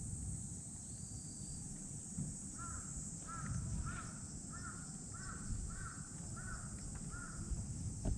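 A crow cawing about eight times in an even series, roughly a call every half second, starting a couple of seconds in.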